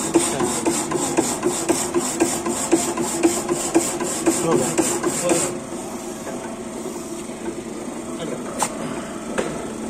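Power hacksaw blade cutting a flat workpiece in rhythmic, evenly spaced strokes over a steady machine hum. The strokes stop suddenly about five and a half seconds in, leaving a quieter hum.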